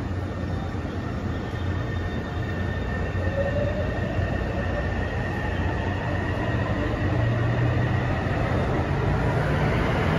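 Taipei Metro C301 metro car running between stations, heard from inside the car: a steady rumble of wheels on rail with a low hum and a thin steady whine. A brief rising tone comes about a third of the way in, and the sound grows slightly louder toward the end.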